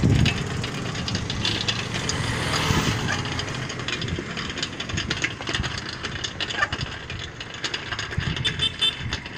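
Road noise while riding a bicycle: wind on the microphone and the bike and phone rattling and clicking. A motor vehicle's engine runs in the first few seconds and fades after about three seconds.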